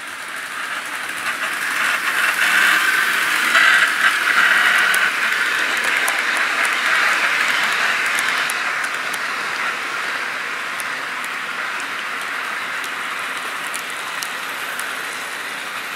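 Model train rolling past on metal track close by: a steady rolling and motor noise that builds to its loudest a few seconds in, then slowly eases off.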